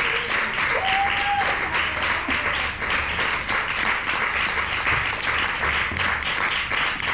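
Audience applauding steadily: a dense patter of many hands clapping, with a short high held call rising over it about a second in.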